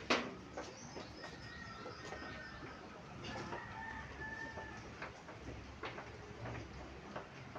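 A sharp tap right at the start, then a rooster crowing: a drawn-out call of about three and a half seconds with a short break in the middle. A few soft taps follow.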